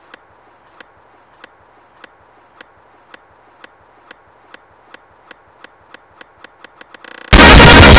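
Footsteps as sharp, regular steps about one and a half a second, quickening to several a second near the end. A little after seven seconds very loud, distorted music cuts in suddenly and is the loudest thing.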